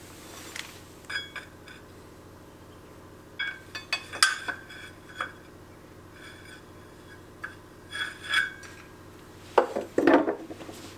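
Metal tools and engine parts being handled: a series of short clinks and knocks, several of them ringing briefly, in loose clusters, with the loudest near the end. A faint steady hum runs underneath.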